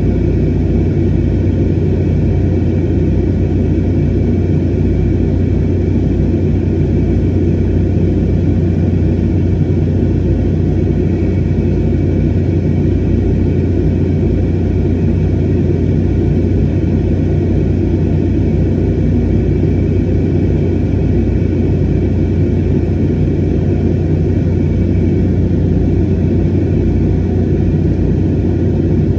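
Airliner cabin noise in flight: the steady drone of the jet engines and rushing airflow, heard from a window seat, with a strong low hum and faint steady higher tones that do not change.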